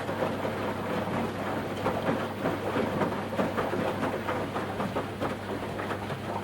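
Washing machine running its wash: water and laundry sloshing in the turning drum, with irregular splashes over a steady motor hum.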